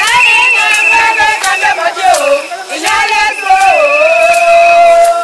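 Music: a song led by a high singing voice holding long, wavering notes that slide up and down in pitch.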